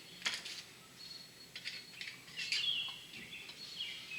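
A bird chirping in short, high, repeated notes, with a few sharp metallic clicks of valve spring parts and tools being handled, the loudest about a quarter of a second in.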